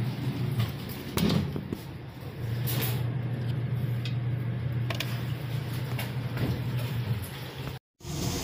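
Steady low machinery hum with a few sharp clicks and knocks from handling. The sound cuts out completely for a moment near the end.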